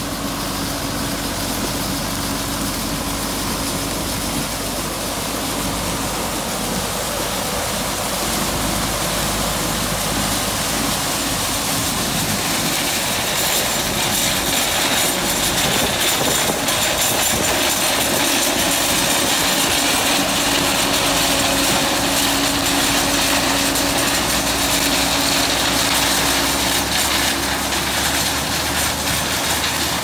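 John Deere 9600 combine harvesting corn and unloading on the go into a grain cart pulled by a John Deere 4640 tractor: engines running with a steady din of threshing and grain pouring from the unloading auger, growing slightly louder about eight seconds in.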